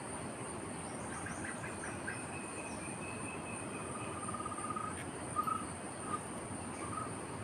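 Steady high-pitched drone of insects, likely crickets, over an even background hiss. A bird's short trills and chirps come in and out from about a second in.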